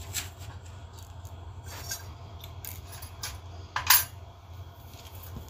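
Light clicks and small knocks, with one sharper click about four seconds in, over a steady low hum.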